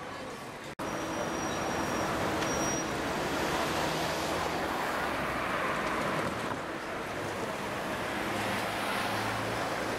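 Steady street traffic noise: a Mercedes-Benz Citaro city bus driving by with its engine running, and cars passing. It starts after a brief dropout just under a second in.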